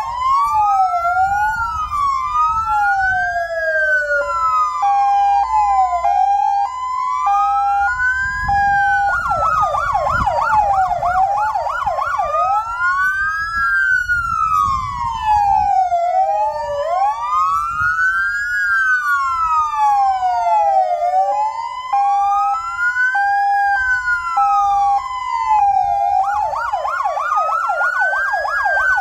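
Sirens of the fire station's parked fire engine and van sounding together as a tribute: several slow rising-and-falling wails overlap throughout. A fast yelp comes in about nine seconds in and again near the end, with a two-note hi-lo pattern between.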